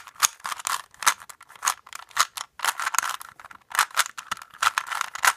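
Plastic Rubik's Cube layers being turned in quick succession: a run of rapid clicking, rattling turns with a couple of short pauses.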